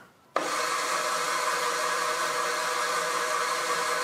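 Milling machine spindle running steadily with a prototype 3D-printed cutter mounted in it, not cutting: an even mechanical whir with a few held tones that starts abruptly about a third of a second in.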